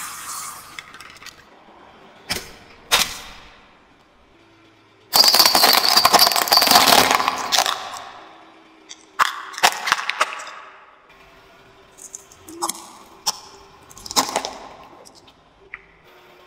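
Plastic toys and other objects cracking and crunching as they are crushed under a car tyre: a string of separate sharp cracks, with a longer loud crackling run about five to eight seconds in.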